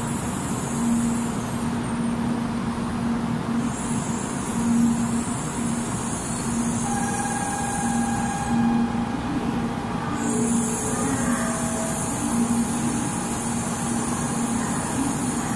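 A 700 series Shinkansen standing at the platform, its on-board equipment running with a steady hum that swells about every two seconds. A high hiss cuts out and back in twice.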